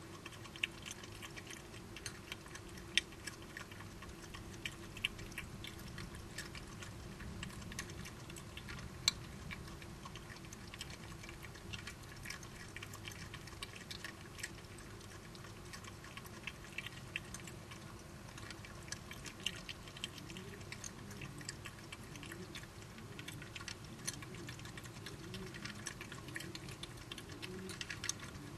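Badgers eating: a steady scatter of quick, irregular crunching clicks of chewing and snuffling at food, with a few sharper cracks, over a faint steady low hum.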